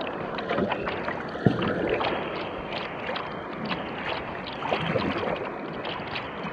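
Kayak paddling on a riffling creek: a double-bladed paddle dipping and dripping over rushing water around the hull of a Dagger Katana 10.4, with a sharp knock about a second and a half in.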